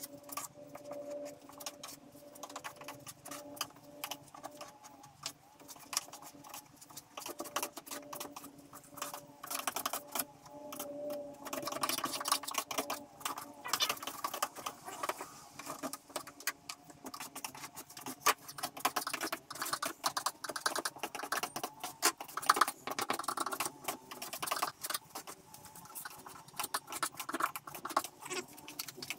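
Irregular scraping and clicking of hand work on a fiberglass boat hull, growing busier about nine seconds in, over a steady low hum.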